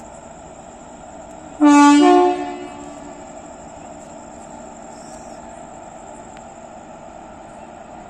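Indian Railways locomotive air horn giving one short blast of under a second, whose pitch steps up partway through, over the steady hum of the standing train.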